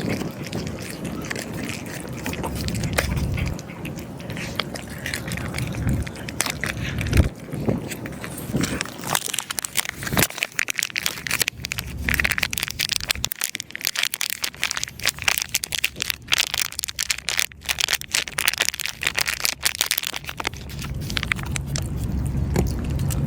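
Cat eating dry food, irregular crisp crunching and crackling, thickest in the middle stretch, over a low wind rumble near the start and again near the end.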